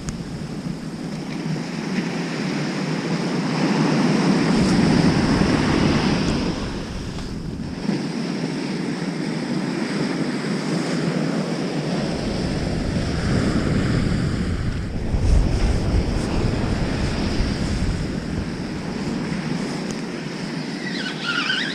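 Heavy surf breaking and washing up a sandy beach, with wind buffeting the microphone on and off.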